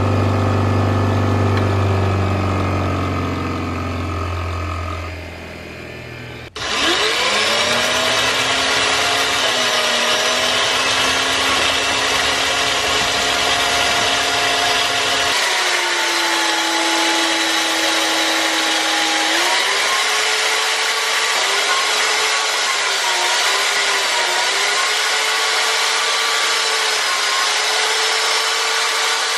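A bench grinder spinning down, its hum fading over the first six seconds. Then an electric drill clamped in a vise runs steadily, spinning a wooden handle while it is sanded with sandpaper, the drill's pitch wavering up and down.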